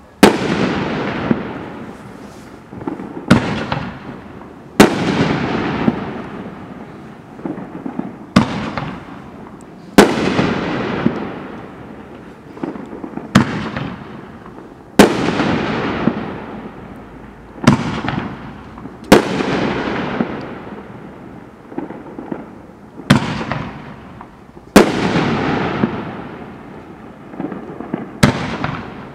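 Dominator Viper 10-shot shell cake firing shot after shot: each shell leaves its tube with a launch thump, and about a second and a half later bursts overhead with a louder, hard-hitting bang that rumbles away. The cycle repeats roughly every five seconds, about six shells in all.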